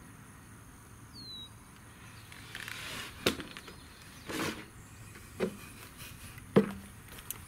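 A few short knocks and rustles of gear being handled on a wooden shooting bench, the sharpest near the end as a pair of earmuffs is taken off and set down.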